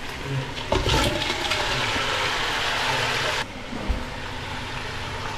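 Cleaned blue crab halves tipped from a bowl into a hot pot: a few knocks as they land just under a second in, then loud sizzling that cuts off suddenly a little past the halfway point, leaving a quieter hiss.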